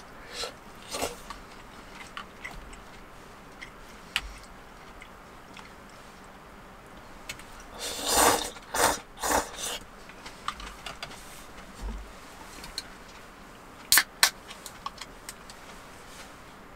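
A person slurping noodles from a bowl: a run of three loud slurps about eight seconds in, with soft eating and chopstick noises around them and two sharp clicks near fourteen seconds.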